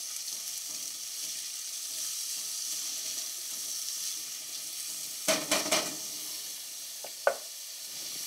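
Onions, garlic, fennel, olives and sun-dried tomatoes sizzling steadily in olive oil in a copper sauté pan over medium heat, stirred with a silicone spatula. A quick cluster of louder knocks comes about five seconds in, and a single short clink near the end.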